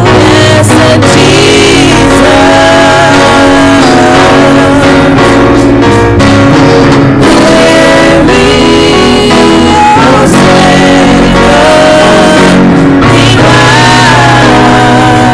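Two women singing a slow gospel song in harmony, with long gliding sung notes, accompanied by electric keyboard and drum kit. The recording is very loud.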